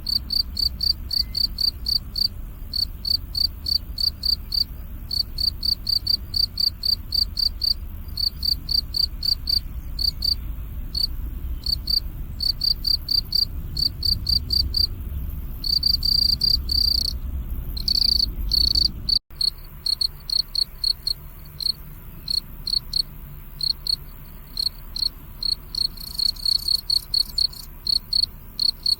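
Crickets chirping: short high-pitched chirps repeated about three times a second, running together into a continuous trill for a few seconds past the middle. There is a low rumble underneath until the sound drops out for an instant about two-thirds of the way through, then the chirping carries on.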